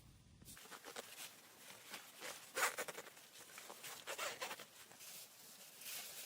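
A series of short scraping, rustling strokes, the loudest about two and a half seconds in and again about four seconds in.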